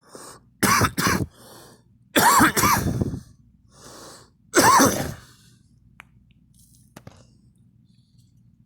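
A person coughing in three fits: two quick coughs, a breath in, two more coughs, another breath, then a single cough about five seconds in.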